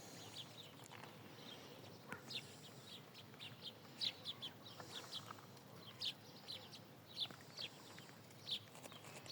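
Small birds chirping: many short, high chirps, each sliding down in pitch, repeated irregularly over faint outdoor hiss.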